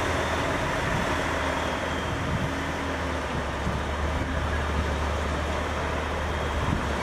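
A truck engine running steadily: a constant low rumble under an even hiss, starting abruptly and holding level.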